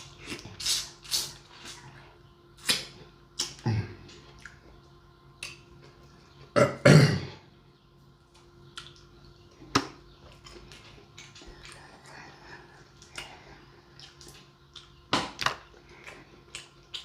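Close-up mouth sounds of someone eating seafood: irregular smacks, slurps and chewing noises, with one longer, louder mouth sound about seven seconds in.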